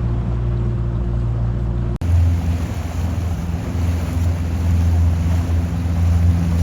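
Boat engine running steadily, with wind and water noise. About two seconds in the sound drops out for an instant and comes back as a deeper, louder engine drone.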